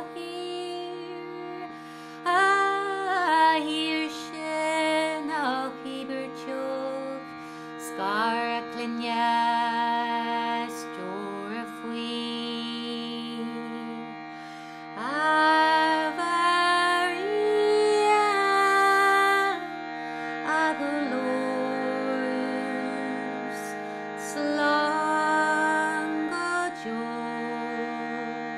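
A woman singing a slow Irish-language song, her voice gliding into and holding long notes in phrases, over a steady unbroken drone.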